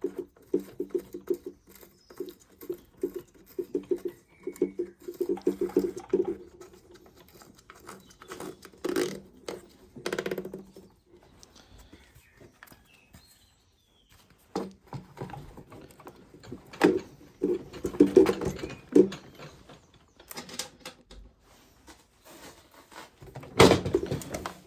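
Plastic clicks and knocks from a Stihl BG86C petrol leaf blower being handled and reassembled. A run of quick clicks fills the first few seconds, followed by scattered knocks and rattles.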